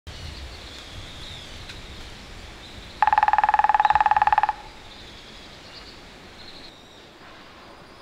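Grey-headed woodpecker drumming on a tree branch: one rapid roll of strikes, about a second and a half long, starting about three seconds in, with a hollow ringing pitch from the wood. Otherwise only faint outdoor background.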